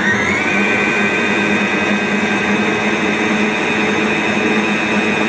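Electric mixer creaming margarine and sugar, running steadily after its pitch rises briefly near the start as the motor comes up to speed.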